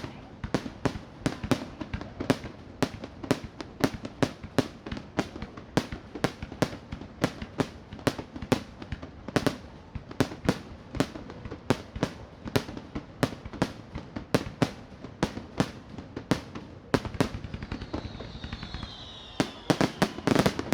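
Fireworks going off in a rapid, continuous string of sharp bangs, about two or three a second. Near the end a few falling whistles are heard, then a denser, louder cluster of bangs.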